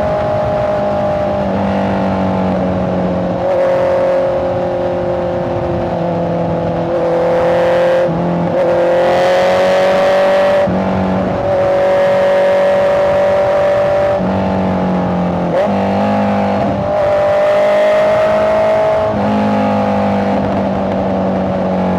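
Honda CBR650R's inline-four engine under way, its revs climbing slowly and then dropping sharply at several gear changes, about half a dozen over the stretch.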